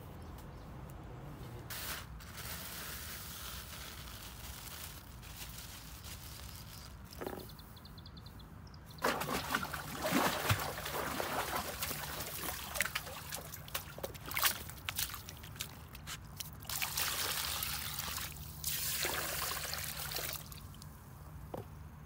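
Water poured from a bucket, splashing over raw chicken pieces in a plastic bowl as they are washed. It comes in several pours, starting a little before the middle.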